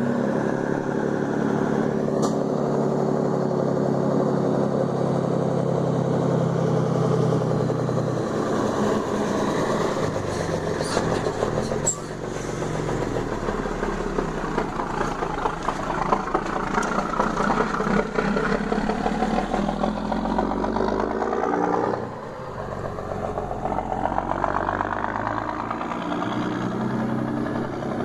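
Mercedes-Benz 1620 truck's diesel engine roaring, held steady for several seconds and then revved up and down. The revs drop sharply about three-quarters of the way through and climb again near the end.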